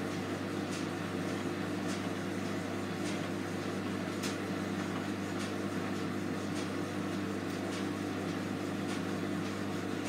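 Hotpoint front-loading washing machine on its wash cycle: a steady motor hum as the drum turns a towel in soapy water, with a few light splashes.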